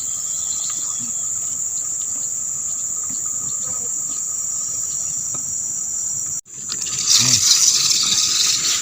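Steady high-pitched drone of insects shrilling in the surrounding vegetation. About six seconds in, the sound cuts out abruptly and returns louder, with a rushing hiss like running water over the insect drone.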